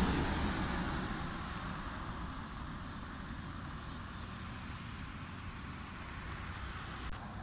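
Yellow ex-school bus passing close by: its engine and tyres are loudest at first, then fade over about two seconds as it moves away. A steady low hum of road noise follows.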